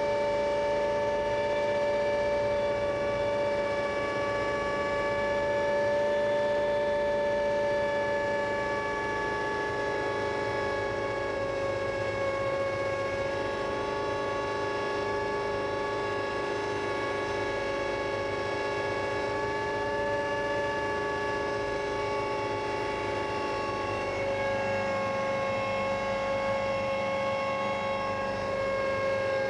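Hummingbird helicopter with a Donovan drag-race V8 engine running steadily in flight, heard from inside the cockpit as a constant whine of engine and rotor drive. The pitch dips slightly about three-quarters of the way through.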